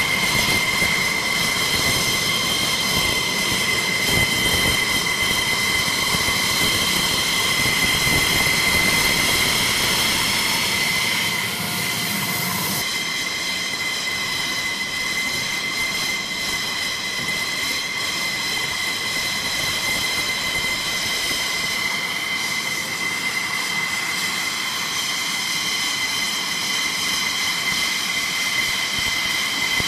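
F-16C Block 52 Fighting Falcon's turbofan engine idling at taxi power: a steady high-pitched jet whine over a rushing roar. About 13 seconds in, the low rumble drops and the sound turns slightly quieter.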